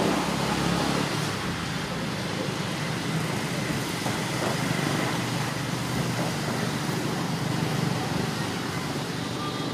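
Steady outdoor background noise: a low rumble with an even hiss above it, and no distinct events.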